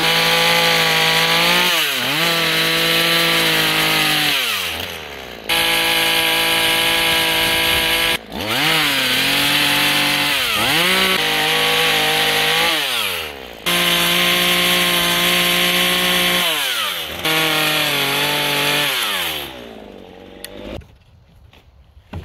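Small electric chainsaw cutting a half-lap notch into a log, run in about five bursts that start and stop abruptly. Its pitch sags and recovers again and again as the chain bites into the wood.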